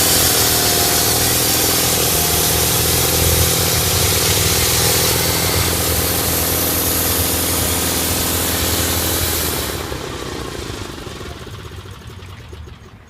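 Portable bandsaw sawmill running under load, its engine steady with the blade hissing through an eastern white pine log. About ten seconds in, the cutting noise stops and the engine winds down, falling in pitch and level.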